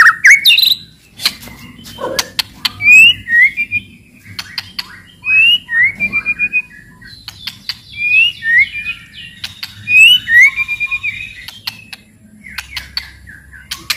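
White-rumped shama singing: phrases of short rising whistled notes mixed with sharp, dry clicking rattles (cetrekan), repeated in bursts with brief pauses.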